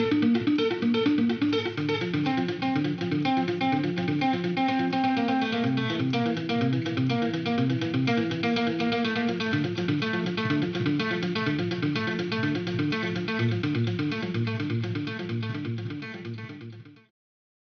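Guitar music: a steady stream of quick picked notes that fades out and stops shortly before the end.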